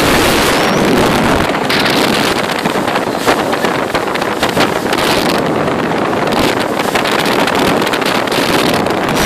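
Motorboat running at speed, its engine and the rush of water in the wake under heavy wind buffeting on the microphone.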